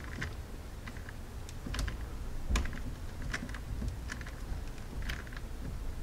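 Screwdriver working the clamp screw of a battery-cable connector in a plastic switch housing: scattered light clicks and taps at uneven intervals, the loudest about two and a half seconds in.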